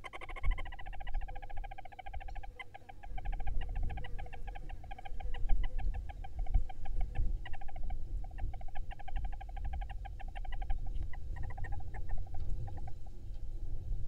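Barn owls in a wooden nest box giving a fast, even chittering call of many short notes a second while the adult feeds the nestlings; the call breaks up and stops near the end. Under it are low scuffling rumbles from movement in the nest litter.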